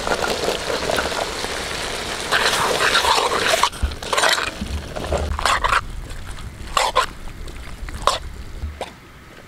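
Diced green papaya tipped from a steel bowl into hot, sizzling masala in an iron kadai, then stirred with a metal spoon. In the second half come several short sharp scrapes of the spoon against the pan.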